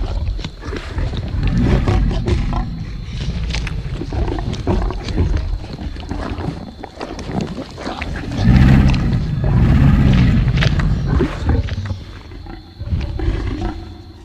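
Tyrannosaurus rex roar sound effect: a continuous series of deep, rumbling growls and roars that swells to its loudest about eight to eleven seconds in, then dies down near the end.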